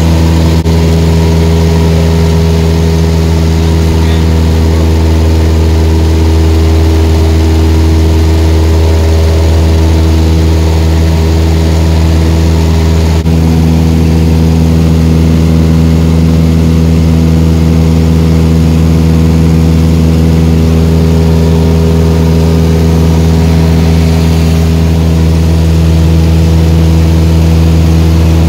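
Piston engine and propeller of a high-wing single-engine light airplane in cruise, a loud, steady drone heard inside the cabin. Its pitch steps slightly about thirteen seconds in.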